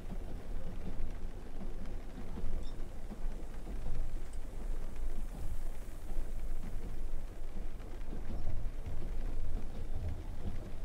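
A steady, rumbling noise, heaviest in the low end, with no tune or voice in it.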